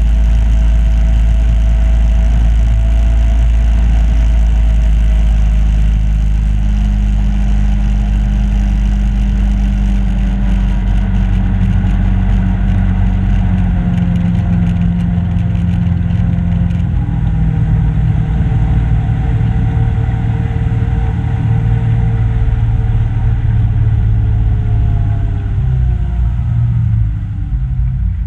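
Aluminum boat's motor running steadily under way, then easing off near the end, its pitch falling as the boat slows.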